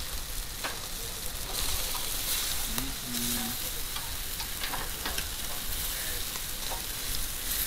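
Jerk chicken sizzling on a charcoal grill's wire grate, a steady hiss of fat and marinade hitting the coals, with scattered clicks of metal tongs against the grate as the pieces are turned.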